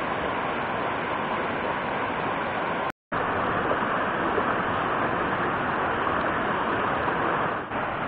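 Mountain stream rushing over boulders in small cascades and riffles, a steady rush of water. It drops out for a moment about three seconds in and comes back slightly louder.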